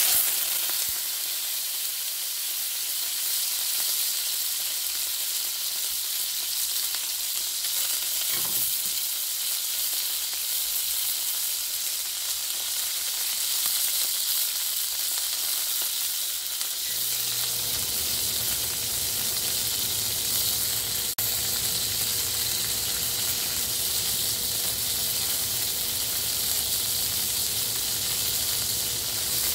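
Steak searing in a smoking-hot cast iron skillet, the final sear of a reverse-seared steak: loud, steady sizzling that starts suddenly as the meat goes in. A low steady hum joins about two-thirds of the way through.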